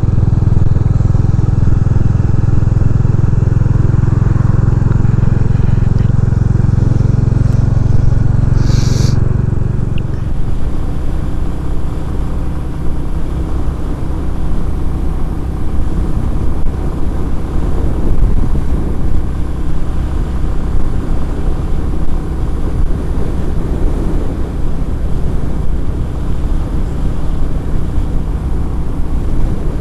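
Motorcycle riding at speed, heard from a lavalier mic inside the rider's helmet: engine drone mixed with wind and road noise. A steady low hum dominates for about ten seconds, then changes to a rougher, gustier rumble.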